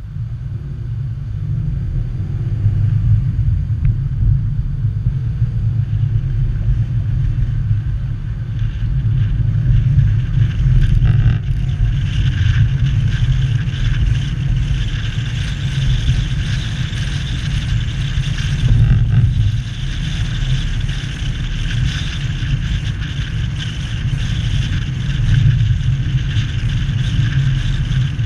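Car driving at a steady cruising speed: a continuous low rumble of engine and road noise, with a higher hiss joining about twelve seconds in.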